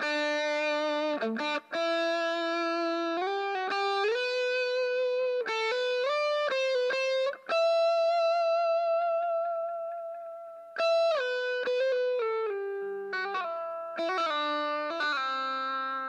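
Tokai ES-60 semi-hollow electric guitar playing a single-note melody line, with notes sliding from one pitch to the next. About seven and a half seconds in, one note is held and slowly fades before the line picks up again about three seconds later.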